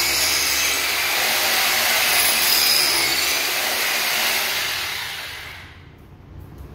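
Corded rotary hammer drill boring into a wooden floor, its motor running steadily with a whine, then winding down about five seconds in as the bit is lifted out.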